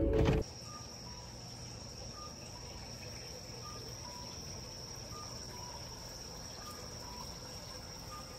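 A single steady, high-pitched insect trill runs on without a break, with faint short notes sounding here and there beneath it. A louder sound cuts off about half a second in.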